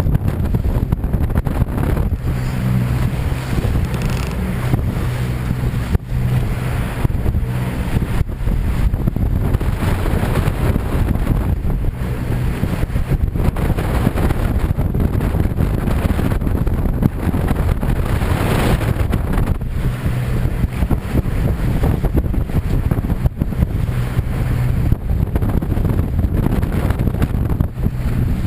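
Strong wind buffeting the microphone aboard a motor launch, over the steady hum of the launch's outboard engine running.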